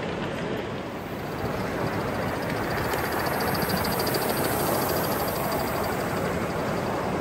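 Gauge 1 model trains running on the layout track, wheels rumbling on the rails, with a rapid, even ticking from about three seconds in as a locomotive passes close by.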